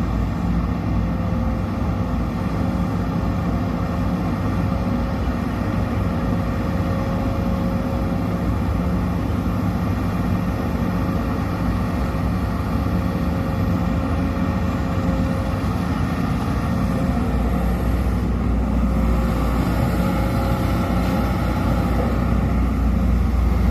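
Sumitomo SH210 excavator's diesel engine running steadily as it works, its low rumble growing stronger about two-thirds of the way through.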